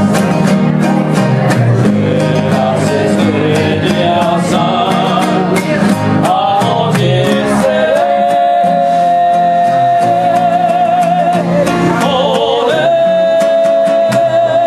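A man singing a song to his own strummed acoustic guitar, holding long notes with vibrato in the second half.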